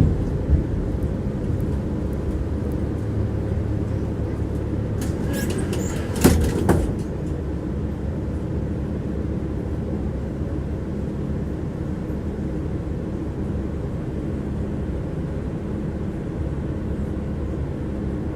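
Tram running, heard from inside the passenger car: a steady low rumble of wheels on the rails and running gear. A brief cluster of sharp clanks, the loudest two close together, comes about six seconds in.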